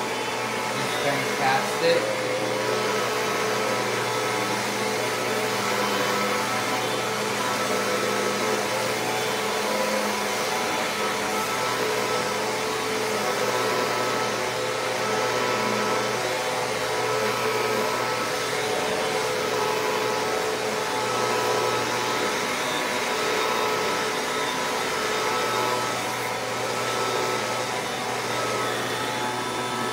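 Shark Lift-Away upright vacuum running on carpet with its failing motor: a steady rushing drone with a held whine over it, which the owner calls awful. A few brief knocks come about a second in.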